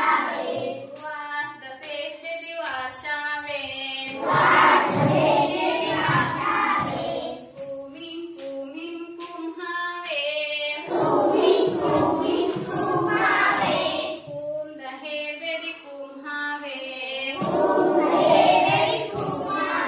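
A group of schoolchildren singing an action song in chorus, with a woman's voice among them. Fuller group passages alternate with thinner stretches of singing.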